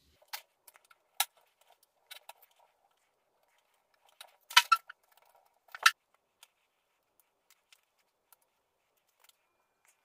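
Scattered small clicks and rustles of hands handling a plastic-and-aluminium tripod while winding thick cotton thread around its leg hub, with two louder sharp clicks about four and a half and six seconds in.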